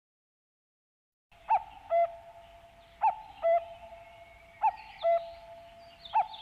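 A bird's two-note hooting call, a higher note then a lower one, repeated four times about a second and a half apart over a steady tone.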